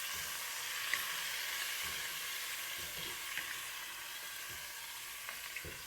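Chicken sizzling as it fries in hot oil in a pan, with a few faint clicks of a utensil stirring it.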